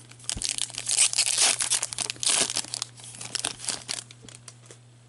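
Hockey card pack wrappers being torn open and crinkled by hand, in a run of crackling bursts that die away near the end.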